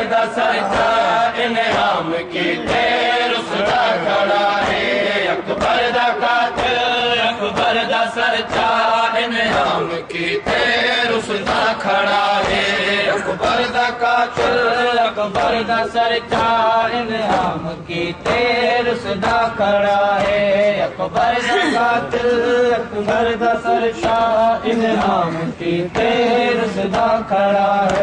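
Male voices chanting a noha, a Shia mourning lament, led by one reciter and taken up by a group of men. Repeated slaps of matam (chest-beating) run through the chanting.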